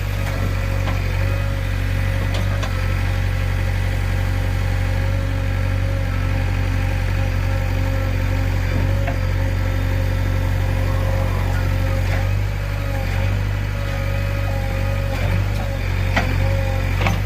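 JCB 3DX backhoe loader's diesel engine running steadily under a constant hum, with a steady whine over it and a few sharp knocks.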